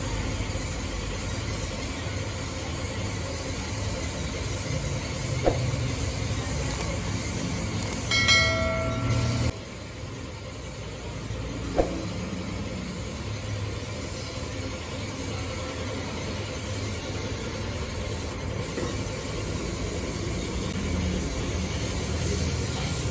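Compressed-air spray gun hissing steadily as it sprays paint onto an alloy wheel rim. About eight seconds in, a loud pitched tone sounds for about a second and a half, and there are two sharp clicks, one before it and one after.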